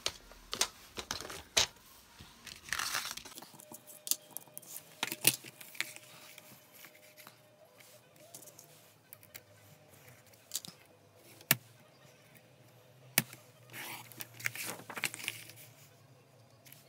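A sheet of white card rustling and sliding as it is positioned on a paper trimmer, with scattered sharp clicks and taps about every second or two and a couple of short swishing rustles.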